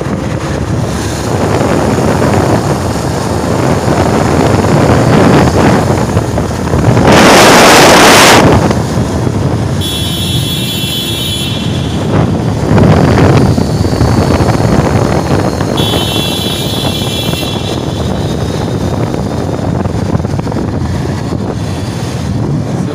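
Wind buffeting the microphone on a moving motorcycle, over engine and road noise. A louder rush of wind about seven seconds in, and two short high-pitched tones about ten and sixteen seconds in.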